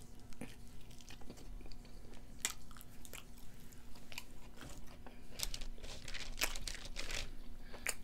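Mouth sounds of eating a cheeseburger: a bite, then wet chewing with many short clicks and crunches.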